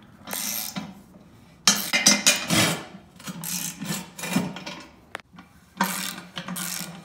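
Hand ratchet wrench clicking in about five short bursts, with pauses between them, as bolts are run down to fasten an adapter plate to a transmission bell housing.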